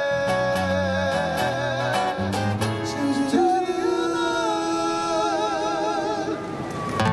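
Live Hawaiian band with plucked strings and bass closing out a song, the singer holding long, wavering notes on the final phrase.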